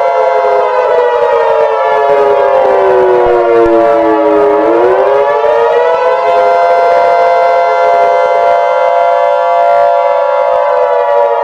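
Civil defense siren winding down in pitch and back up about halfway through, then holding steady. Under it runs the steady two-tone Emergency Alert System attention signal.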